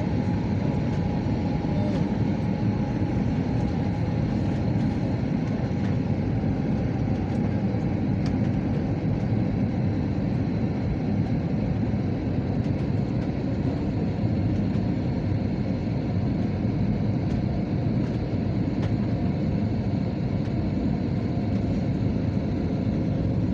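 Steady roar of an airliner cabin on its descent to land: engine and airflow noise, heavy in the low end, with a faint steady hum above it.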